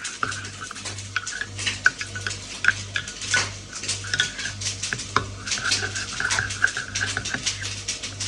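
A metal spoon stirring, scraping and clinking against a dish, with many irregular sharp clicks.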